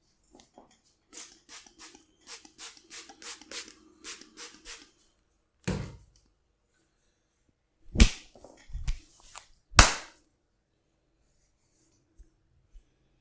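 Hands slapping and tapping on a person's body in a barber's massage: a quick even run of about a dozen light strokes, a single dull thud, then three loud slaps about a second apart.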